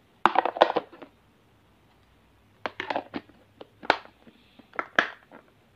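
Hard plastic lunch box being handled and closed: a quick clatter of knocks just after the start, then a scattering of sharp clicks and taps as the lid and its side clip are fitted.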